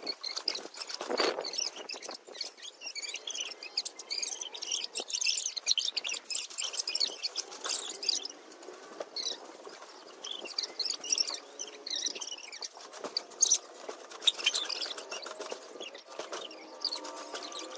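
Girls' voices played back fast-forwarded, pitched up into rapid, high chipmunk-like chatter and squeaks.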